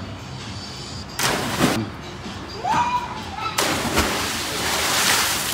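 A person jumping into a swimming pool: a sudden heavy splash about three and a half seconds in, then water spraying and churning. A short rush of noise comes about a second in.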